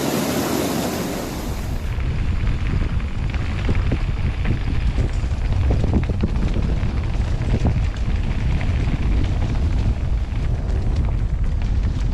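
Wind buffeting the camera microphone in a rough, steady low rumble, with scattered faint clicks and rattles, as on a mountain bike riding a trail. For the first two seconds a brighter hiss, like rushing river water, lies over it.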